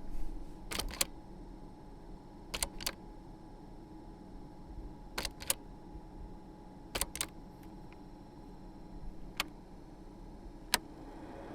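Sharp mechanical clicks from a 1990 Volvo 240's interior fittings, mostly in quick pairs: four pairs a couple of seconds apart, then two single clicks near the end.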